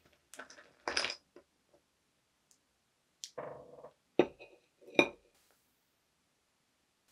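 Ice cubes clinking and rattling against the inside of a glass jar as fingers fish in it. Two sharp, louder clinks of hard things knocking on a ceramic plate come about four and five seconds in.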